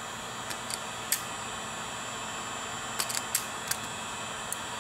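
Hand wire strippers clicking as they strip the insulation off a fan's wires: a few sharp clicks in the first second and a quick cluster of clicks about three seconds in, with a steady background hiss.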